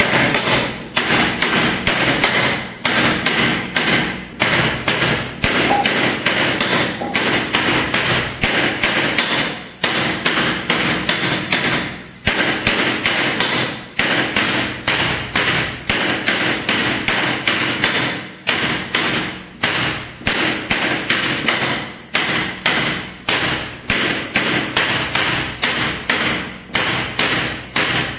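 A flat hand-held block striking a large ceramic floor tile in quick repeated knocks, about four a second, tamping the tile down into its mortar bed. The knocking stops briefly a few times as the block is moved across the tile.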